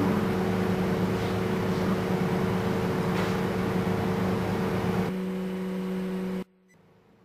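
Haas TM-1 CNC vertical mill running as it machines a wooden block with a small drill bit: a steady hum with a whine under a hiss of machine noise. The hiss drops away about five seconds in, and the sound cuts off suddenly about a second and a half later.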